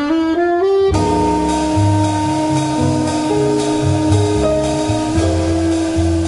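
Jazz quartet of alto saxophone, piano, double bass and drums playing. A short rising run of single notes opens, then the whole band comes in together about a second in, with long held notes over a walking bass line and cymbals.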